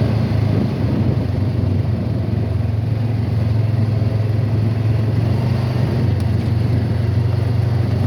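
A 2018 Honda Pioneer four-seat UTV's engine running steadily under way: an even, unbroken low drone.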